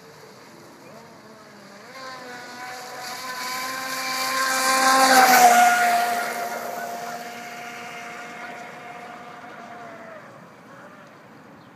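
Atomik radio-controlled speedboat's motor whining at speed with the hiss of its hull through the water, swelling as it races close past, loudest about five and a half seconds in, then dropping in pitch and fading as it runs away.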